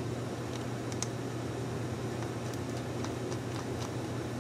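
Light, irregular ticks of a precision screwdriver turning a tiny screw in a GoPro HERO4 Session's housing, over a steady low hum.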